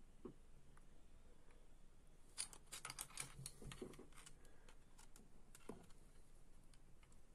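Faint, scattered small clicks and taps of hands handling small metal parts and tools, with a cluster of clicks about two and a half to three seconds in.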